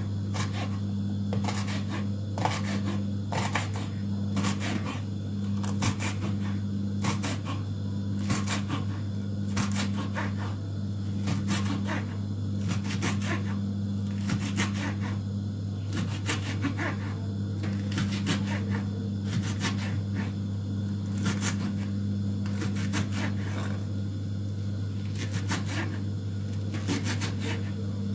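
Kitchen knife chopping green hot peppers on a wooden cutting board: a steady run of short knocks, about two a second, over a steady low hum.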